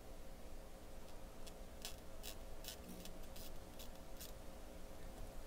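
Soldering iron and tweezers working a corroded resistor lead loose from a circuit-board joint: a scatter of about a dozen short, sharp ticks through the middle, over a low steady hum. The joint is heavily corroded and tough to free.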